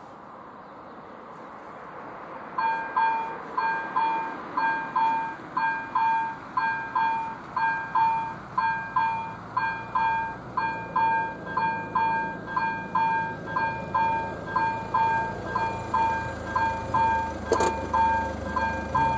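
Level-crossing warning bell of AŽD 71 crossing signals starting up about two and a half seconds in and ringing steadily at about two strokes a second, sounding as the signals begin flashing red for an approaching train. A low vehicle rumble builds beneath it in the second half, with one sharp click near the end.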